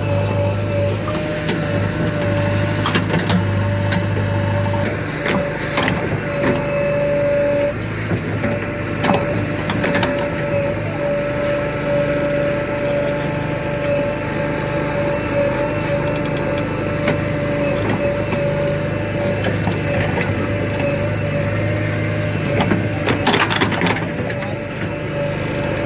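JCB 3DX 49 hp backhoe loader's diesel engine running under digging load, with a steady hydraulic whine and occasional knocks of the bucket in the soil. The low engine note drops away about five seconds in.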